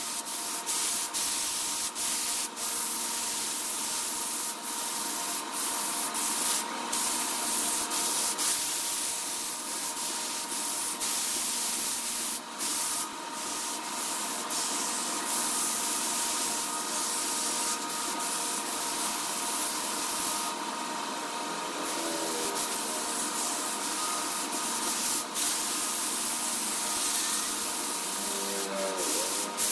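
Wood lathe running with a tool or sandpaper held against the spinning wood: a rough, continuous scraping hiss over a steady motor hum, broken by frequent small clicks.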